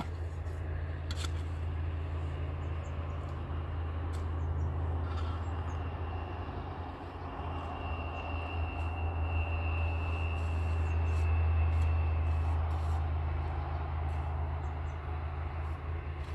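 A steady low engine drone that swells a little toward the middle, with a few light clicks and knocks.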